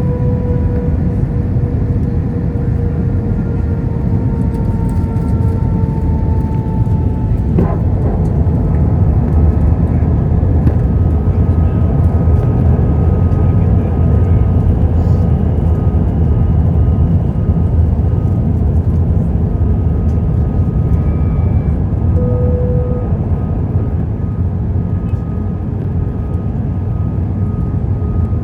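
Cabin noise aboard an Airbus A320-200 in flight: a steady, loud rumble of airflow and engines with a whine whose pitch falls slightly over the first several seconds. A single sharp click comes about eight seconds in, after which a higher whine holds steady.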